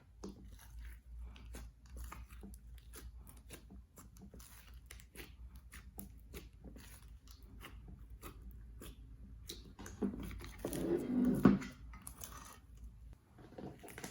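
Slime being worked by hand: a steady stream of small sticky clicks and crackles, with a louder, fuller squelching stretch about ten seconds in that lasts a second or so.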